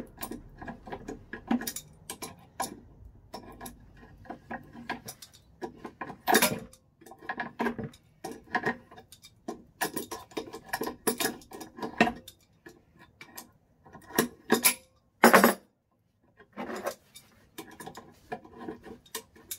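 Irregular metal clinks, taps and scrapes from hand tools working on an old bench vise, with one louder clank about fifteen seconds in.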